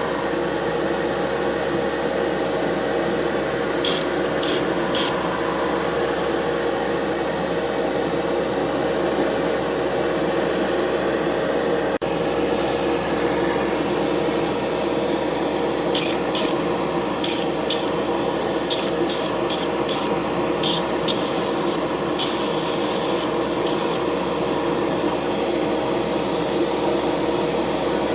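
Paint spraying in short hissing bursts: three quick ones about four seconds in, then a run of a dozen or so from about halfway through, a couple of them held longer. A steady hum runs underneath.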